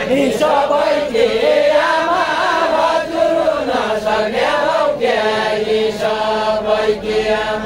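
Deuda folk singing: a man's voice chanting a verse in long, held, wavering notes.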